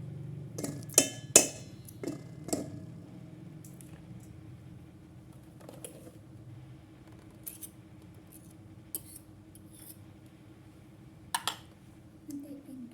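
Kitchen utensils and dishes clinking: a few sharp clinks in the first few seconds and a pair near the end, over a faint steady hum.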